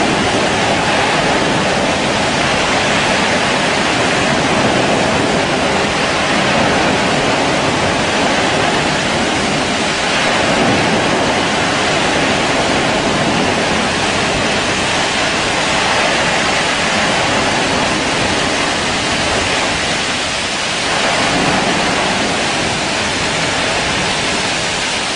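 Fire on a burning drilling rig: a loud, steady rushing noise that never lets up.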